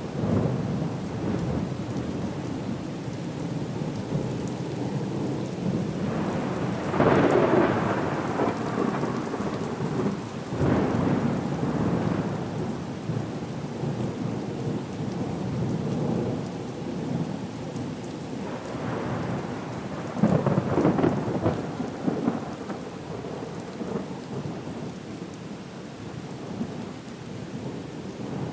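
Storm soundscape: steady rain with rolling thunder that swells louder three times.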